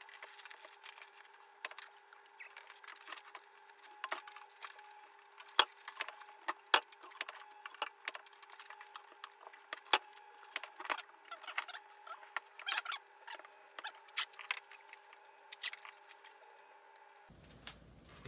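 Plastic cling film being stretched and pressed over shelf items, crinkling in irregular sharp crackles and clicks, over a faint steady hum.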